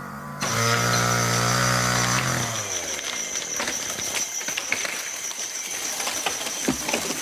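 Two-stroke chainsaw running, then falling in pitch as it winds down and fades about two and a half seconds in. A steady high insect whine runs on throughout, and scattered cracks and rustles follow.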